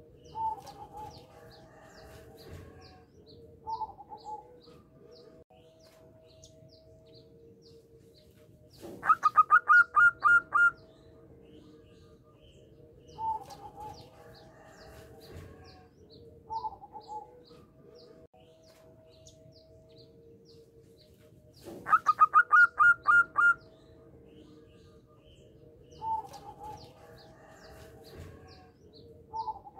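Zebra dove (perkutut) singing: short coos every few seconds, and twice a loud, rapid run of about eight staccato notes lasting nearly two seconds.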